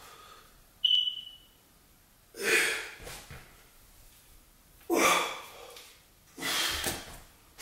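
A man's heavy, forceful exhalations from the exertion of a dumbbell workout: three loud breaths about two seconds apart. About a second in there is a sharp click with a brief ringing tone.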